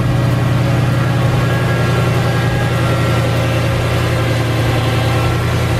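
Mercedes E55 AMG's supercharged M113K 5.4-litre V8 idling steadily shortly after a cold start, running on a newly replaced supercharger belt tensioner. It sounds nice and quiet, with no belt or tensioner rattle.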